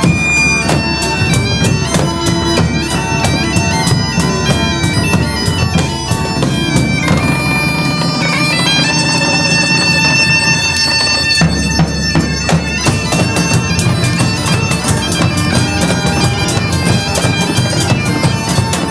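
Bagpipes playing a droning folk dance tune with drums beating time. The drumming drops out for a few seconds in the middle while the pipes play on.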